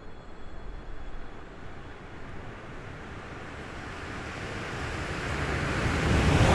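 A train approaching along the line, its rumble and rush growing steadily louder and brighter through the second half.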